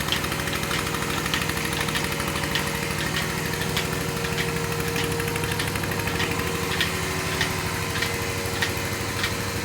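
Milking machine's vacuum pump running steadily, with the pulsator clicking regularly, about every half second.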